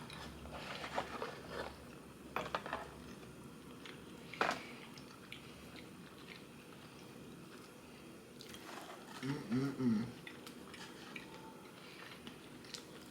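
Close-up eating sounds: biting and chewing crinkle-cut fries and a burger, with a few short crunches in the first few seconds. A brief hummed vocal sound comes about two-thirds of the way through.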